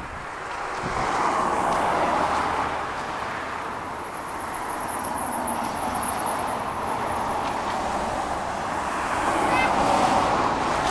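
Cars passing on the road, their tyre and engine noise swelling and fading, loudest about a second in and again near the end.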